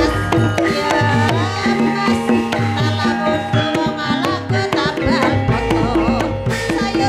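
Javanese gamelan music for an ebeg horse dance: kendang hand drums beat in a busy rhythm under held, ringing notes, with a high wavering melody on top.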